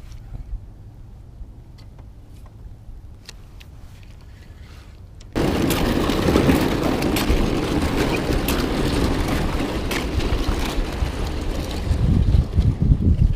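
A faint low rumble with a few small ticks, then, about five seconds in, a sudden loud rushing noise with crackles, which is wind buffeting the microphone out on the open pond. The low gusts grow heavier near the end.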